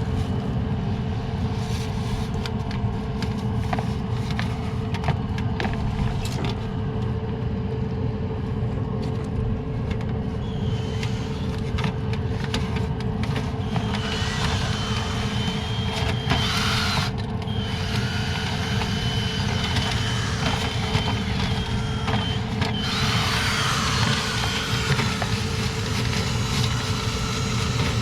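Steady rush of air with a low hum from a running clothes dryer blowing its exhaust out through the vent duct. A thin high whine comes and goes in the second half.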